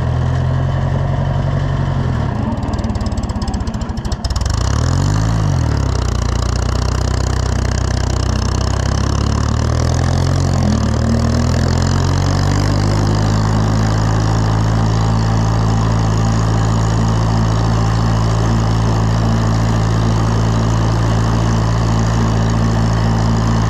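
Oliver 1250 tractor engine running under way. Its speed sags with a brief dip about four seconds in, swells and falls twice, then climbs and holds a higher, steady speed from about twelve seconds. The engine is short of power, which the owner puts down to the governor linkage.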